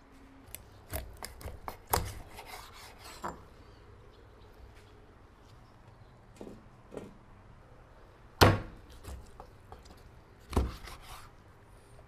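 Scattered wooden knocks and clatter of kitchen work on a wooden board. There is a quick run of knocks early on, a few lighter ones later, the loudest sharp knock about eight seconds in and another strong one near ten and a half seconds.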